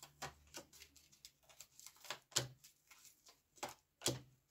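Tarot cards being handled and laid on a table: irregular light taps, flicks and card snaps, with louder slaps about two and a half seconds in and near the end.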